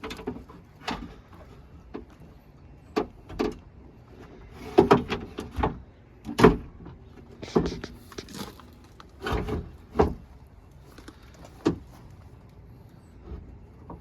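Irregular knocks and clunks, a dozen or so over several seconds, as a window frame with its glass is worked at an angle into the metal shell of a Land Rover Discovery 2 rear door.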